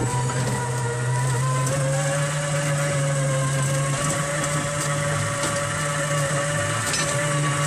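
Motor of a children's classic-car ride running steadily as the car moves along: a constant low drone with a thin steady whine above it.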